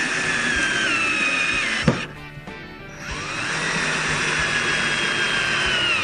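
A power drill/driver running in two bursts of a few seconds each, likely driving screws; its whine rises as it spins up and drops in pitch toward the end of each run. A sharp click comes as the first run stops.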